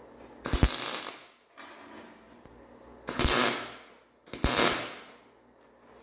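MIG welder arc crackling in three short bursts, each under a second: short welds being laid on horseshoe steel.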